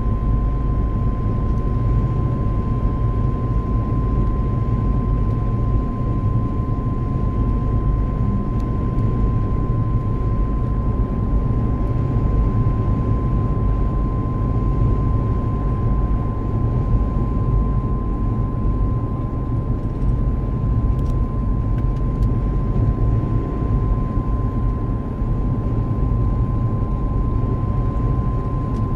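Mitsubishi Pajero driving at about 70 km/h with a loud, steady whine: one unchanging high tone held throughout, over the low rumble of road and engine.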